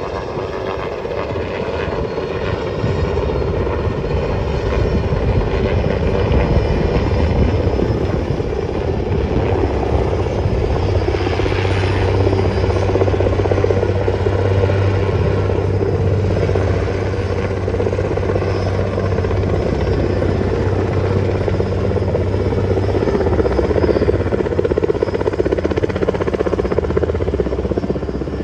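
Sikorsky helicopter hovering with a load slung on a long line: a loud, steady rotor and engine drone. A deeper low hum strengthens through the middle stretch, then eases.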